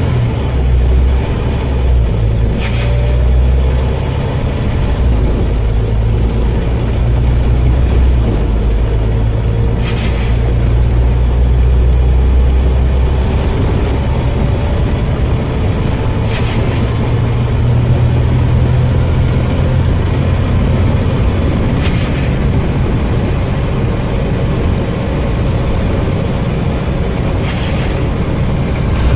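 Scania OmniCity bus with its engine running as a steady low drone, and five short sharp hisses of escaping air, one about every five to six seconds. This is the loud "sneezing" that the owner puts down to worn-out air tanks.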